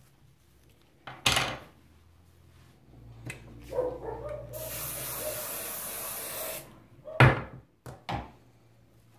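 Aerosol hairspray (Volumax mega-hold) sprayed onto hair in one steady hiss about two seconds long, a little past the middle. A few short, sharp rustling knocks come before and after it, one about a second in and two near the end.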